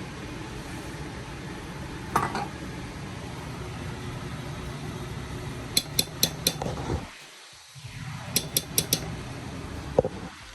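Kitchenware clinking during cooking: a sharp clink, then two quick runs of about four light taps a couple of seconds apart, and a knock near the end, over a steady hiss.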